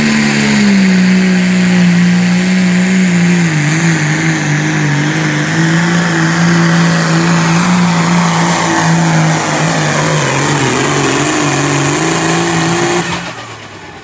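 John Deere diesel pulling tractor running hard under load as it drags the weight-transfer sled. Its engine pitch holds, then sags lower in two steps as the sled bears down. The sound cuts off suddenly about a second before the end.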